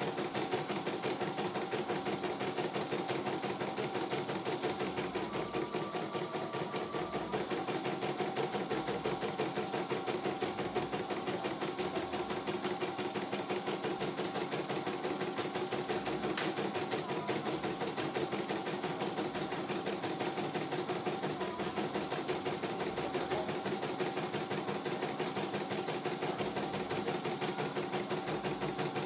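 CNY E900 computerized embroidery machine stitching out a design: a steady, rapid, even needle rhythm over the hum of its motor.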